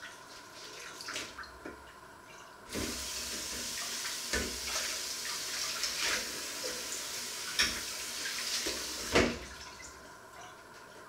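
Kitchen tap running into a stainless sink while dishes are rinsed under it, with knocks and clatter of dishware against the sink. The tap comes on about a quarter of the way in and shuts off near the end, with the loudest knock as it stops.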